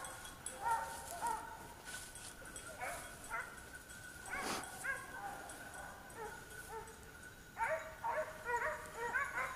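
A pack of petit basset griffon vendéen hounds giving tongue: many short, rising-and-falling cries that overlap, coming thicker near the end, with one sharper, louder cry about halfway through. This is the baying of scent hounds working a line.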